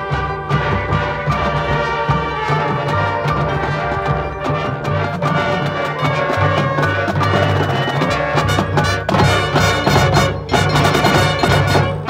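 Marching band playing: sustained brass chords over front-ensemble mallet percussion and drums, with a run of sharp percussion hits in the last few seconds.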